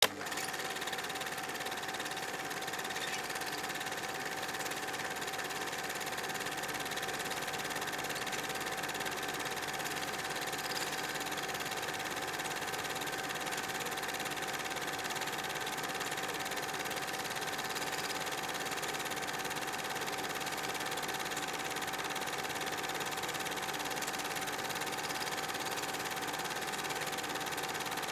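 Cine film projector running, a steady mechanical whirr with a constant hum that does not change.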